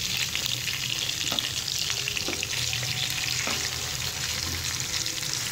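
Marinated fish pieces sizzling and crackling steadily in shallow cooking oil in a non-stick pan, with a few light knocks of a fork as the pieces are turned.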